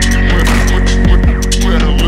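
Background electronic music: a steady low droning bass with a held high tone and regular percussion ticks.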